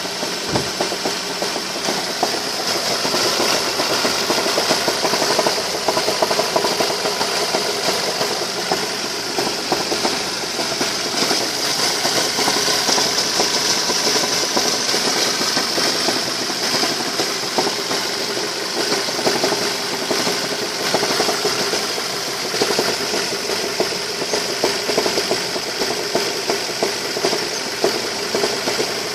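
Ford Focus 2's 2.0-litre 16-valve Duratec four-cylinder engine idling with a strong, steady drumming knock, a fault whose cause the owner does not know.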